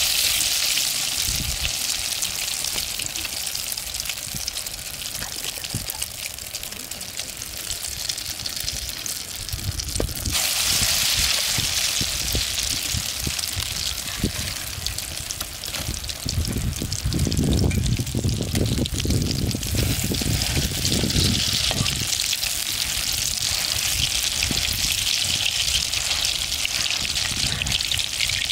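Egg-battered pumpkin flowers deep-frying in hot oil in an iron wok, a steady sizzle and crackle that grows louder about ten seconds in. A low rumble joins for a few seconds past the middle.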